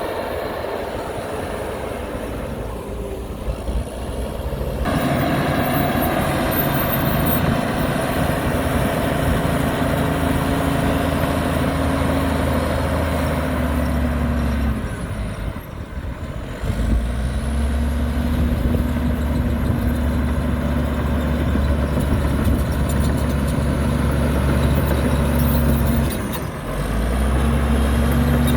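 Heavy diesel engine of earthmoving machinery running hard. Its note steps up about five seconds in, drops away briefly twice, and picks up again each time.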